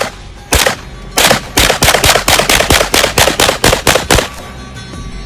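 Rapid semi-automatic fire from a POF 5 9mm pistol: one shot about half a second in, then a fast string of more than a dozen shots at about five a second that stops shortly after four seconds.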